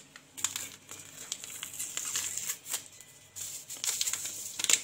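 A small sachet of vanilla sugar crinkling and crackling irregularly in the hands as it is opened.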